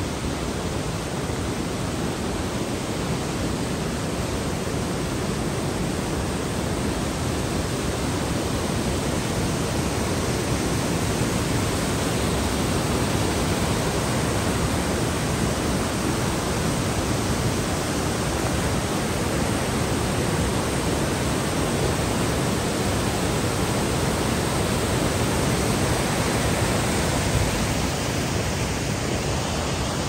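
Mountain waterfall and the cascading stream below it: a steady, even rush of falling and tumbling water.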